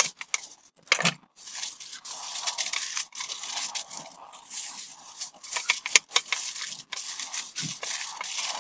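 Aluminium foil crinkling and crackling as it is folded and crimped by hand around a rack of ribs into a packet, with many irregular sharp snaps.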